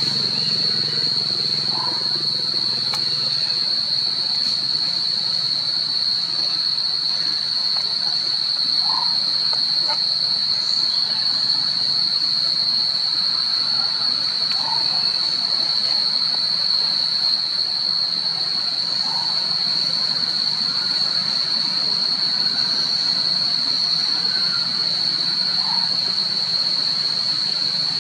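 Cicadas droning in one steady, high-pitched, unbroken chorus, with faint short calls every few seconds.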